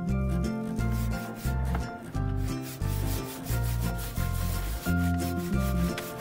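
Hand saw cutting through a green tree log in repeated back-and-forth strokes. Background music with a steady bass line plays under it.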